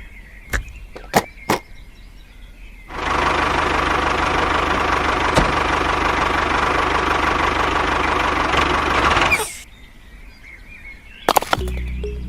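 A few sharp clicks, then a small motor running steadily with a dense, even noise for about six and a half seconds, starting and stopping abruptly.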